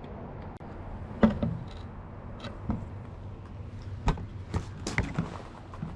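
A handful of scattered, irregular knocks and clicks, the loudest about a second in and a quicker cluster near the end, over a low steady background rumble.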